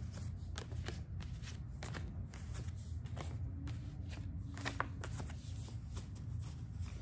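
A deck of cards being shuffled by hand: a continuous run of irregular soft clicks and rustles as the cards are handled.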